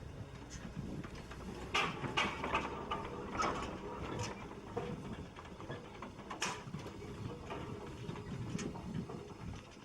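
Aveling and Porter steam road roller running: a low steady rumble with irregular metallic clanks and clicks from its mechanism, the sharpest about two seconds in and again at six and a half seconds.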